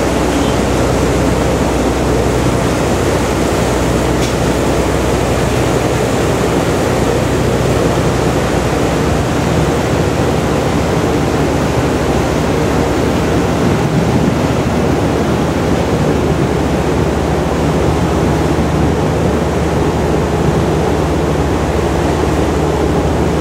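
River cruise boat under way: steady low engine drone under a loud, even rush of wake water and air.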